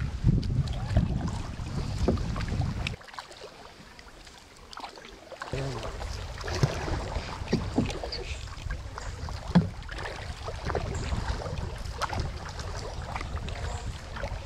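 Kayak paddling on a river: the paddle blades dipping with small splashes and dripping water. Wind buffets the microphone with a low rumble for the first three seconds, which stops abruptly.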